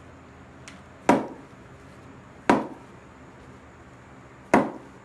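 A mallet striking a wooden concrete mold three times, each a single sharp knock, a second or two apart: knocking the form boards loose from the cast concrete.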